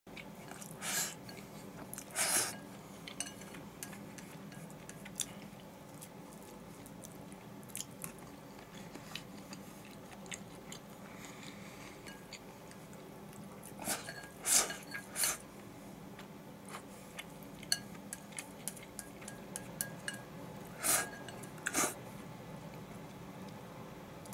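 Wooden chopsticks clicking and scraping against a ceramic rice bowl as food is shovelled into the mouth, with chewing in between. A handful of short, louder scrapes stand out: two near the start, a cluster of three about halfway, and two more near the end.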